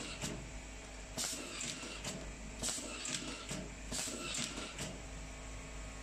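Hand-held automatic nylon cable-tie strapping gun cycling repeatedly as it ties up a wire harness, giving short hissing bursts about one to two a second over a steady low hum.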